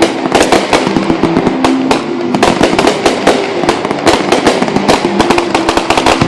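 Fireworks going off in a rapid, dense barrage: many sharp bangs and crackles a second, overlapping without a break.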